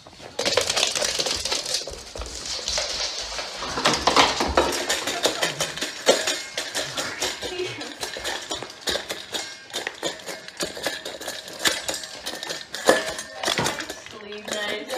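A dog eating from a stainless steel bowl, with dense, rapid, irregular clinks against the metal.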